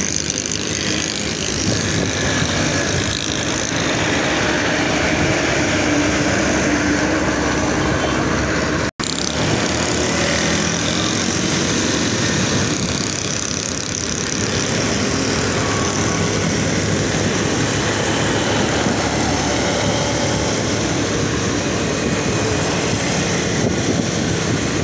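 Steady traffic and road noise heard while riding an electric bike through city traffic, with the engines of nearby motorcycles and auto-rickshaws. The sound cuts out for an instant about nine seconds in.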